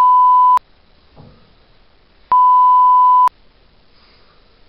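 Censor bleep: a loud, steady, high-pitched pure beep tone that cuts over the speaker's sentence. It stops about half a second in and sounds again for about a second from just past two seconds.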